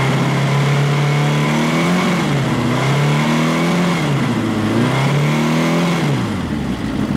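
1982 Honda CB750C's air-cooled DOHC inline-four engine revved and held at about 5,000 rpm, dipping and rising twice, then dropping back to idle near the end.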